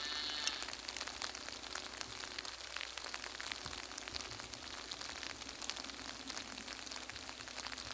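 Light rain falling outdoors: a steady hiss with many small, irregular ticks of drops.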